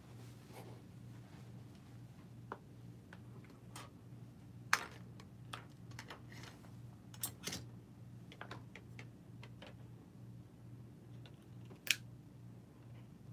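Scattered light clicks and taps, about a dozen of them, irregularly spaced, with two louder ones near the middle and near the end, over a steady low hum.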